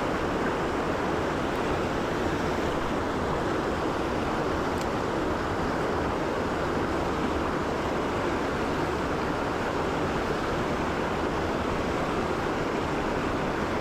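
Steady rushing of a fast-flowing, rocky mountain stream.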